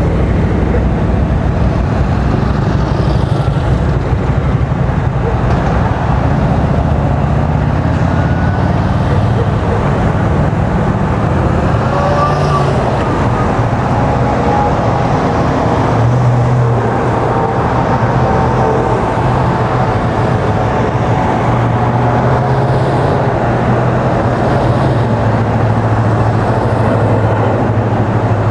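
Motorcade vehicles, black Chevrolet Suburbans and a Chevrolet Express van, driving past one after another: engine drone and tyre noise on the road. The low engine drone grows stronger about halfway through.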